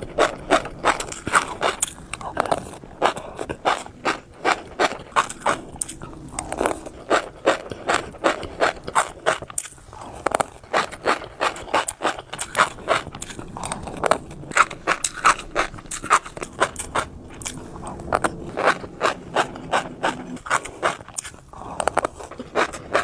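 Fish roe popping as it is chewed close to the microphone: a rapid run of crisp clicks and pops, several a second, with wet mouth sounds between them.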